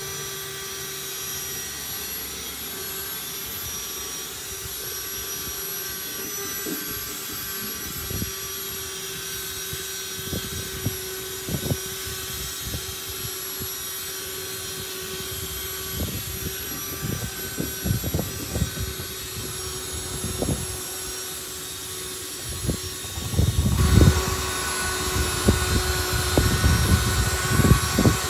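Cordless drill spinning a wire wheel brush against rusty diamond-plate steel, scouring off loose flaking rust. A steady motor whine, with rough scraping and knocking that come more often as it goes on and get louder near the end.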